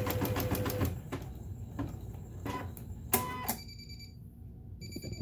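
Janome Memory Craft 8000 embroidery machine stitching with a rapid even rhythm that stops about a second in. A few soft clicks follow, then electronic beeps as the machine signals that the embroidery design is finished.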